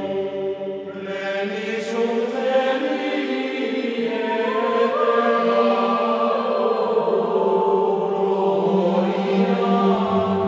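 Background music of slow, choir-like chanting voices, held on long notes that change pitch every few seconds.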